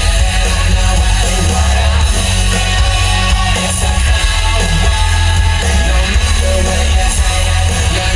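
Recorded music played loudly through a vintage home stereo system, with a heavy, pounding bass line.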